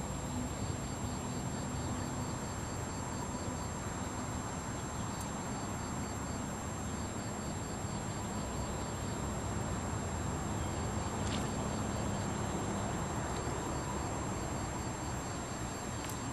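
Steady outdoor background rumble and hiss, with a thin high steady whine and short runs of faint rapid ticking or chirping high up. A few single faint clicks stand out, the last one near the end.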